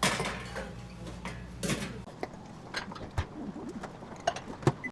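Scattered sharp clicks and clinks of tableware, dishes and chopsticks being set down and handled, with faint background voices. A low hum stops about two seconds in.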